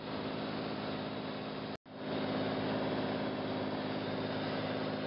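Steady aircraft engine drone heard from inside the cabin. It drops out for a split second about two seconds in, then comes back slightly louder.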